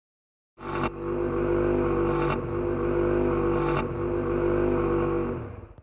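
Straight-piped Ski-Doo 800 E-TEC two-stroke twin snowmobile engine idling loudly with no muffler, starting abruptly about half a second in and cutting off at the end. Three brief hissing bursts ride over the steady idle about a second and a half apart.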